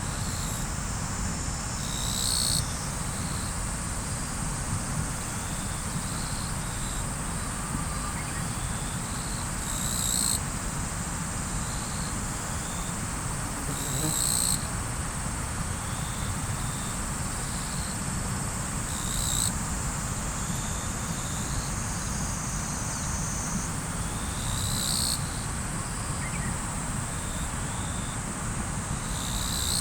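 Riverside ambience: a river flowing as a steady low rush, with insects chirring continuously. A louder insect call repeats every few seconds.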